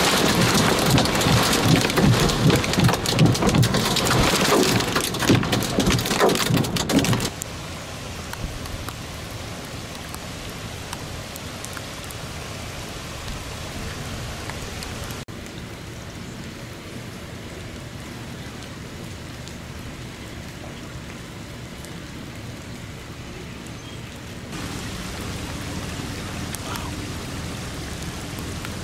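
Severe thunderstorm downpour with hail: dense, hard pelting for about the first seven seconds. It then drops suddenly to a quieter, steady heavy rain.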